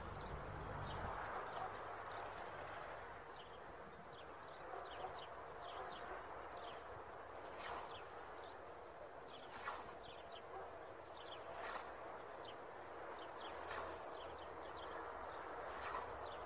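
An old Eastern European scythe cutting alfalfa by hand, giving a swish about every two seconds through the second half. Small birds chirp throughout.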